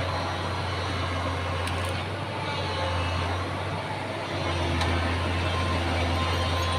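Excavator's diesel engine running steadily with a deep hum, easing off for about two seconds in the middle before coming back up.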